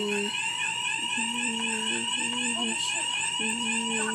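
Fire alarm sounding continuously: a shrill tone pulsing rapidly and evenly, without a break.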